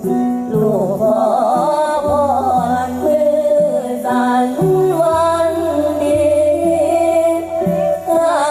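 Music with singing: a wavering, bending vocal melody over steady held bass notes.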